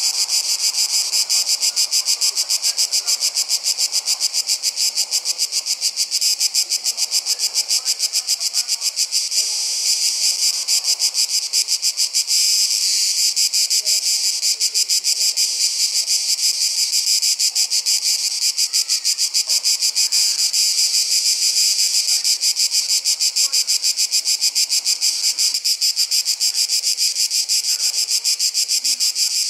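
A dense chorus of summer insects, a high-pitched chirring of rapid, even pulses that keeps on steadily.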